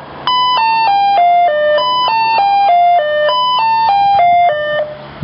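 Fire station alerting chime over the station loudspeaker: clear electronic tones stepping down in pitch, in about three descending runs of notes, announcing an incoming call-out.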